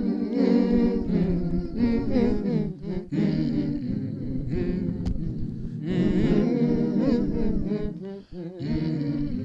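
Multitracked male voices humming a hymn in close a cappella harmony, every part sung by one man, with short breaks between phrases.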